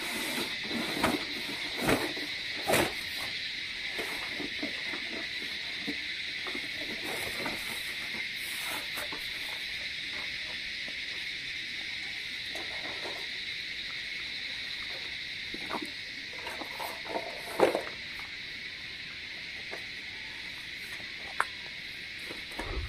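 Steady hiss of rain on the tent. Scattered knocks and rustles as a foam sleeping mat is handled, then clicks and clanks as a burner is fitted onto a small gas cylinder stove, loudest about two-thirds of the way through.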